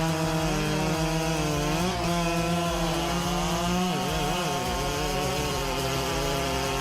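Large two-stroke chainsaw running at high revs as it cuts wood, its engine pitch wavering and dipping briefly about two and four seconds in.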